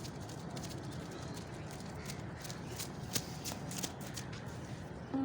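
Footsteps of several people running a shuttle run, a quick irregular patter of steps on the ground over a steady outdoor background.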